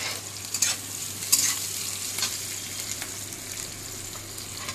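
Chopped vegetables sizzling in a metal kadai while a metal spatula stirs them, scraping against the pan about five times, the sharpest scrape about a second in.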